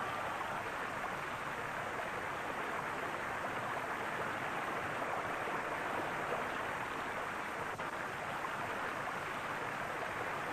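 Steady rain falling, an even hiss that runs on without a break.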